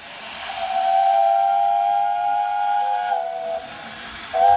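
Steam whistle: one long blast of about three seconds that sags slightly in pitch as it ends, then a short second blast near the end, over a hiss of steam.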